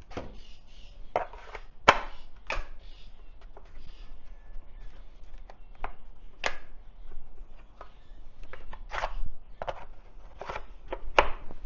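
Irregular clicks and knocks of hard plastic being handled, as a DeWalt 20 V battery is fitted onto a battery-powered fluid-transfer pump.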